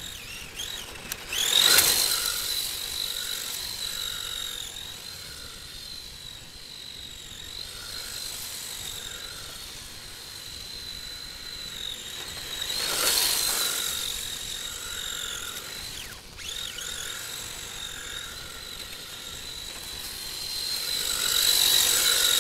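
Electric motor and drivetrain of an HPI E10 RC drift car running with a high, steady whine that dips and rises slightly in pitch. It swells loud three times as the car sweeps close: about two seconds in, around thirteen seconds, and near the end.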